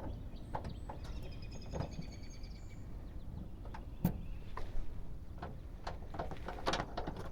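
Scattered light clicks and taps of a hand tool at the door handle's Allen head screw, the sharpest about four seconds in, with faint high chirps from about one to three seconds in.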